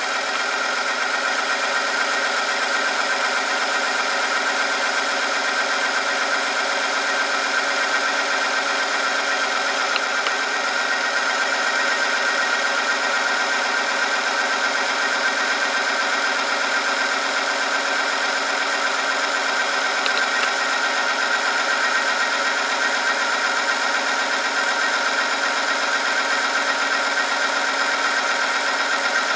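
Oil-film friction-testing machine running under load. Its electric motor spins a ring through the oil against a steel sample pressed on by the weighted lever arm, giving a steady, unchanging high whine.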